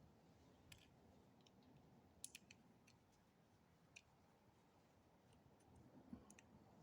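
Near silence with a few faint, scattered clicks: the small metal parts and tools of a spinning reel being handled during disassembly.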